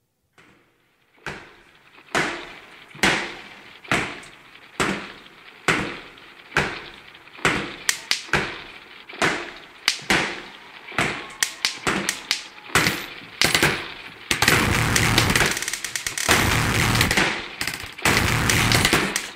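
Dance soundtrack of sharp, heavy percussive hits with ringing tails, about one a second, some coming in quick pairs, giving way about fourteen seconds in to a dense, loud wall of distorted noise with a fast pulse.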